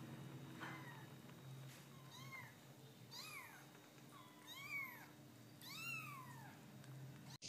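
Young kittens mewing, about five faint, high-pitched mews that each rise and fall in pitch, roughly one a second.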